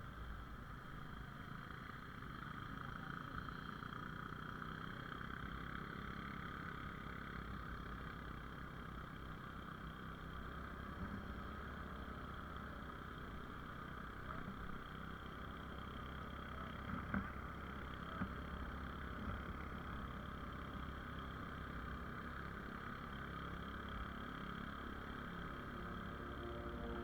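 Faint, steady running noise of a vehicle heard from on board while travelling along a rough village road.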